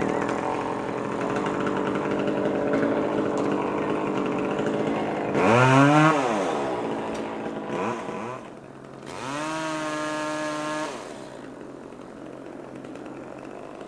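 Chainsaw idling and being revved: one quick rev up and back down about five seconds in, the loudest moment, then a longer rev held at high speed for about two seconds before it drops back to idle.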